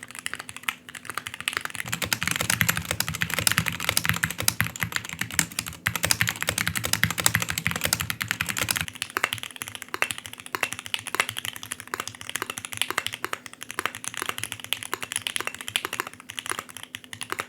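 Fast typing on a mechanical keyboard: a dense run of key clicks with short pauses. A low hum sits under the clicks from about two seconds in and stops about nine seconds in.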